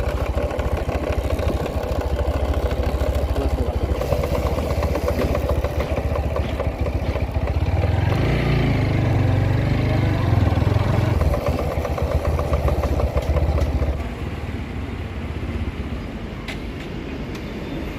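TVS Apache RTR 160 4V single-cylinder motorcycle running, its drive chain making a rough, grating noise that keeps coming back after tightening and lubing, which the owner takes for a chain or sprocket problem. The sound swells in the middle and eases off after about 14 seconds.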